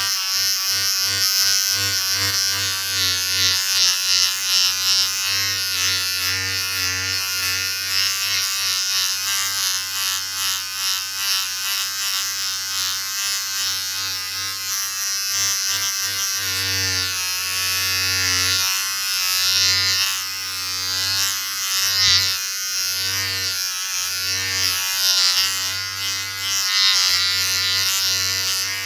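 Electric shaver running with a steady buzz, its loudness rising and falling a little.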